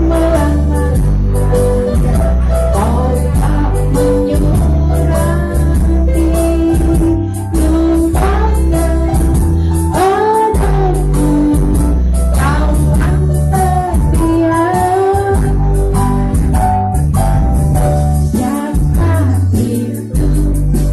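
A woman singing into a handheld microphone over a karaoke backing track with a heavy, steady bass line.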